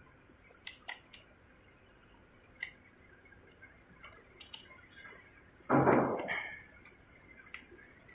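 Small metallic clinks and taps of screws and a screwdriver against a metal mounting plate as screws are fitted, with one louder knock and rub about six seconds in.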